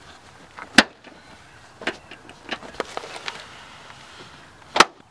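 Chevrolet Cruze rear seat cushion being pulled straight up off its retaining clips: two sharp snaps, about a second in and again near the end, with lighter clicks and knocks between.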